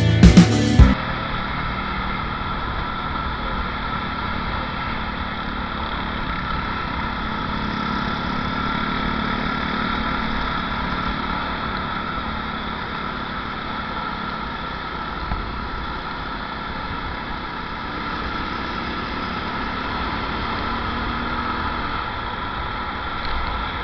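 A guitar music track cuts off about a second in, giving way to the steady sound of a motorcycle on the move: an even mix of engine, wind and road noise.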